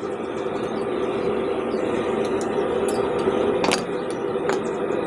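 A steady machine hum runs throughout, with two light clicks about three and a half and four and a half seconds in.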